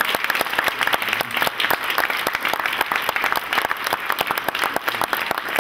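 A group of people applauding: many hands clapping in a dense, steady patter.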